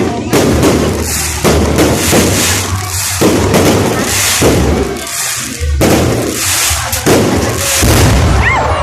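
Fireworks going off in a rapid series of loud bangs, about one a second, with the rumble and crackle of the bursts running on between them.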